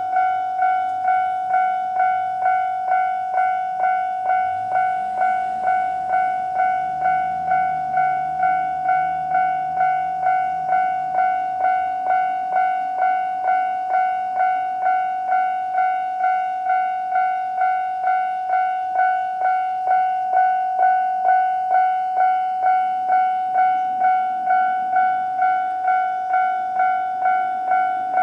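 Japanese electronic level-crossing bell ringing steadily, about two strikes a second, while the crossing is active. About four seconds in, a diesel railcar engine revs up underneath it and holds for several seconds before fading.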